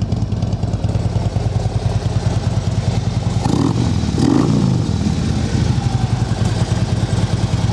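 2015 Harley-Davidson Ultra Limited Low's 103 cubic-inch V-twin with liquid-cooled heads, idling through Vance & Hines slip-on mufflers, with a brief change in the engine note about four seconds in.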